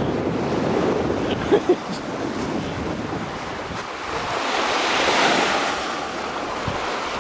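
Lake Michigan waves washing onto the shore, with wind buffeting the microphone. Two short sharp sounds come about one and a half seconds in, and a wave surges louder around five seconds in.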